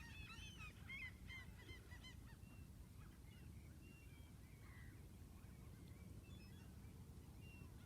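Faint honking calls of a flock of geese, many overlapping in the first two seconds and then thinning to scattered calls, over a low steady rumble.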